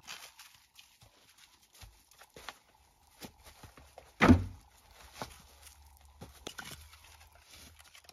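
Split firewood being handled: scattered wooden knocks and clatter as logs are pulled from the stack and gathered, with one loud wooden thud about four seconds in.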